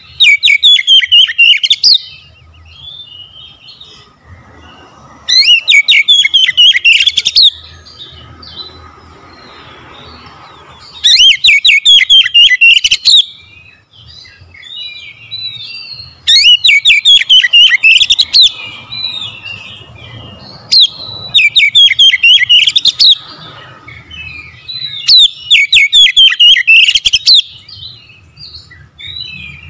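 Oriental magpie-robin singing in loud bursts of about two seconds, each a fast run of high, falling notes, repeated six times at roughly five-second intervals. Softer twittering fills the gaps between bursts.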